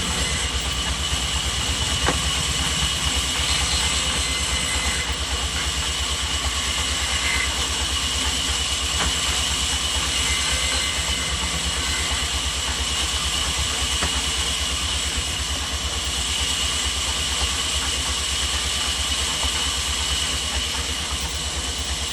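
Sawmill machinery running steadily: a fast, even low pulsing like an engine at idle, with a steady high whine over it.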